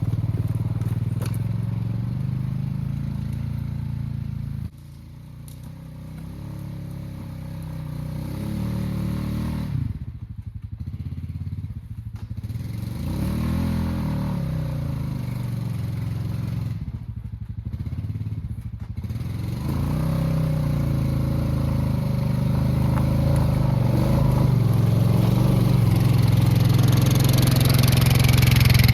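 Honda Rubicon ATV's single-cylinder engine running under load in low gear while dragging a heavy log on a chain. The revs sag and climb again several times as the engine strains, and the sound drops abruptly about five seconds in before building back up.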